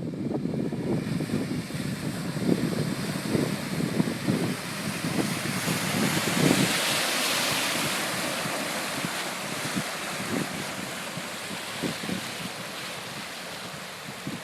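Off-road 4x4 wading through muddy water: water splashing and sloshing around the vehicle with irregular thumps. The splashing swells about six to eight seconds in, then eases off.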